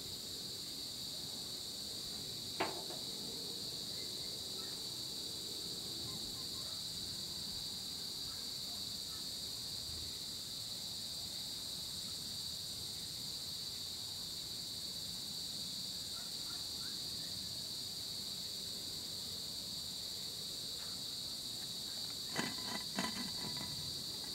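Steady, high-pitched chorus of insects. A single sharp click sounds about two and a half seconds in, and a short run of clicks comes near the end.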